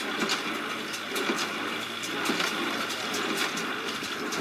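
Tractor-driven straw baler running, with a steady machine noise and a quick, irregular clatter of knocks.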